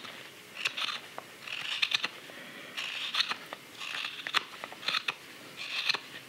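Hook knife (spoon knife) slicing shavings from green sycamore while hollowing a carved belt cup. About six short slicing strokes, roughly one a second, each a crisp shaving sound with a click.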